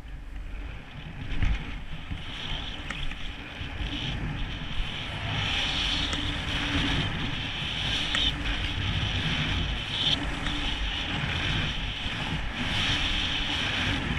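Skis hissing and scraping through sun-softened snow on a downhill run, with wind buffeting the helmet camera's microphone. The hiss grows louder about four seconds in.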